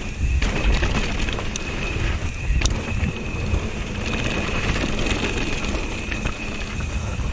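Mountain bike rolling fast down a packed dirt trail, heard from a handlebar-level camera: wind rushing over the microphone and tyres rumbling on the dirt, with scattered clicks and rattles from the bike and a faint steady high-pitched buzz.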